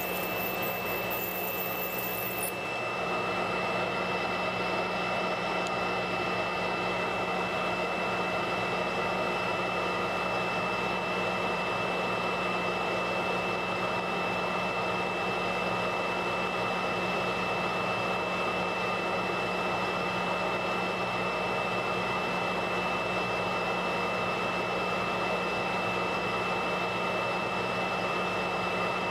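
Stain-removal spotting machine running with a steady drone, a constant high whine over a low hum, while a stain is worked out of a white sweatshirt; the sound shifts slightly about two and a half seconds in.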